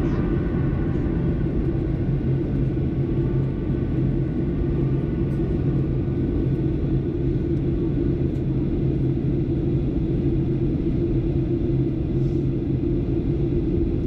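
Steady cabin rumble of a Boeing 737-800 in flight, heard from a window seat: jet engine and airflow noise with a strong low hum, holding an even level.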